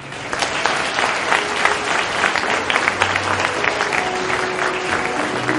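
An audience starts applauding all at once and keeps up steady clapping. A few faint music notes come in near the end.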